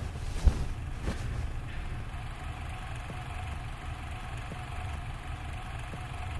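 A steady low rumble, with a sharp knock about half a second in and another about a second in.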